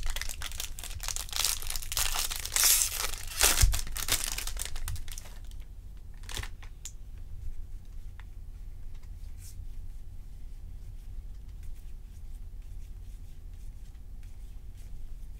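Foil wrapper of a 2020 Topps Series 2 jumbo pack of baseball cards being torn open and crinkled for about five seconds, then only faint rustling and light ticks as the cards are handled.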